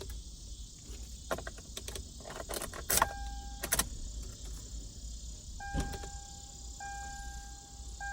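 Clicks and light rattles of switches and keys being handled in a Toyota 4Runner's cab. Then the dashboard warning chime sounds a steady electronic tone, briefly about three seconds in and then repeating about once a second.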